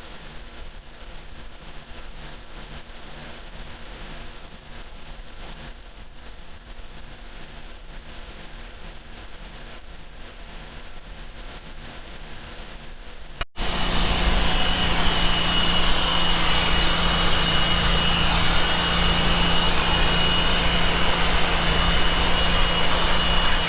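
Farm machinery engine running steadily, fairly quiet with a slow wavering low throb. After an abrupt cut about halfway through, a much louder steady engine drone with a thin high whine.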